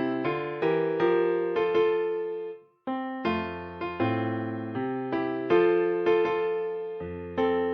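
Background keyboard music: piano-like notes struck in chords and a melody, each fading after it is played, with a short break about three seconds in.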